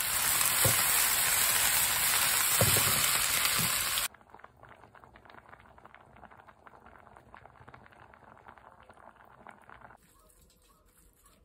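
Peppers frying in oil in a cast-iron skillet over a wood fire: a loud, dense sizzle, with a few knocks as the pan is shaken. After about four seconds it cuts off suddenly to a much quieter bubbling of many small pops.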